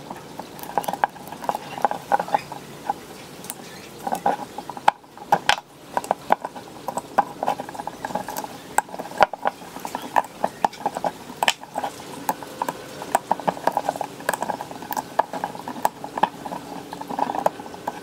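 A small metal hand tool snipping, prying and scraping at the old copper windings of a ceiling fan motor's stator as the wire is cut out, giving many irregular clicks and ticks.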